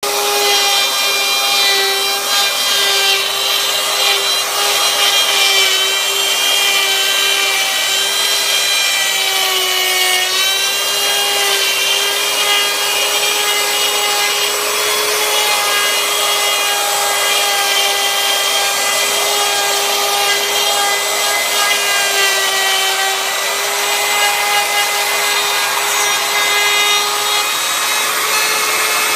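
A corded Ryobi router running at speed and cutting plywood: a loud, steady high whine over the hiss of the bit chewing wood. The pitch dips briefly about ten seconds in and again a little after twenty seconds.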